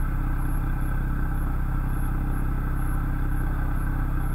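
Porsche sports car's engine idling steadily.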